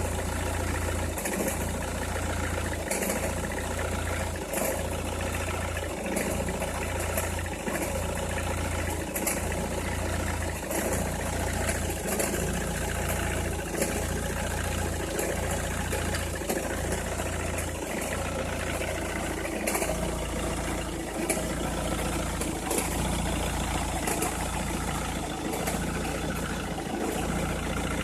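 Opel Meriva engine idling steadily once warmed up, with light high ticks about once a second. Warm is the state in which the owner says its cold-start crackling noise stops.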